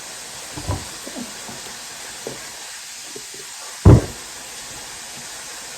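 Steady hiss of chicken frying in oil, with a few faint knocks early on and a single sharp thump about four seconds in.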